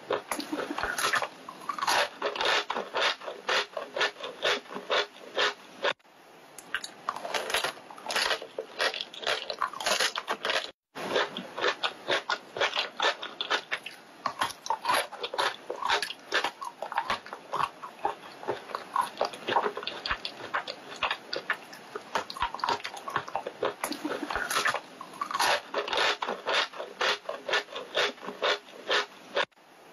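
Siberian chipmunk crunching food in its mouth, heard close up: quick runs of small sharp crunches, several a second, broken by short pauses and two brief gaps.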